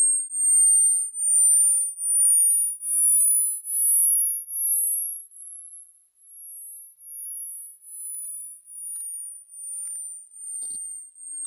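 Hearing-test tone: two very high-pitched pure tones glide in opposite directions, one rising and one falling, and cross midway. The sound pulses about three times every two seconds. It tests how high a listener can still hear, as high-pitched hearing fades with age.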